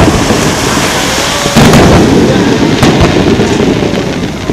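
Aerial fireworks going off: a loud bang about a second and a half in, then a couple of sharp cracks near three seconds, over steady background noise.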